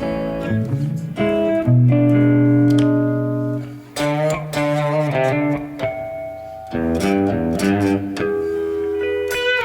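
Electric guitar, a Telecaster, played through the Strymon BigSky MX reverb pedal's hall preset: single notes and chords ringing out into long reverb tails, with a rising slide about a second in.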